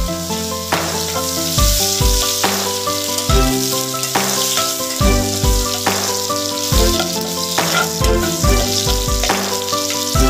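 Background music with a steady drum beat, over a steady sizzle of food frying in oil in a pot as it is stirred.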